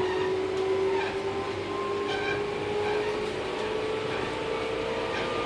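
Tobu 8000 series electric commuter train running, heard from inside the car: its traction motors hum in a tone that rises slowly as the train picks up speed, over a steady rumble of wheels on rail.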